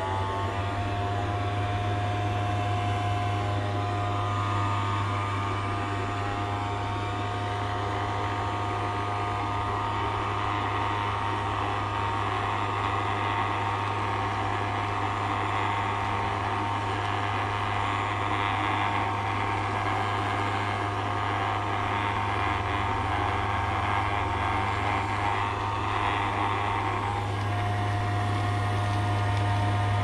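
Homemade plastic-bottle vacuum cleaner's small electric motor and fan spinning up, then running steadily with a low hum and a whine while its hose sucks up shredded paper.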